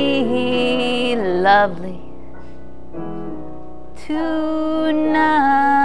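Women singing a slow song with piano accompaniment: long held notes for the first couple of seconds, about two seconds of piano alone, then a new long held note about four seconds in.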